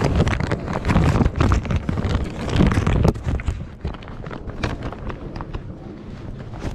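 Heavy fabric car cover rustling and scraping as it is pulled off the car, the cloth rubbing directly against the microphone. It is loud for the first three seconds, then drops to softer rustling with a few light knocks.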